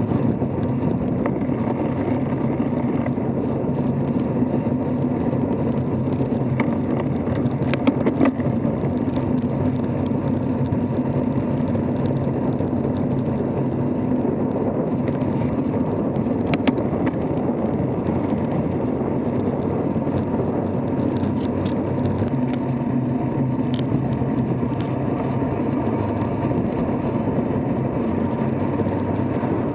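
Steady rushing and rumbling riding noise from a road bike moving at speed, picked up by a camera on the bike. A few brief clicks come about eight and sixteen seconds in.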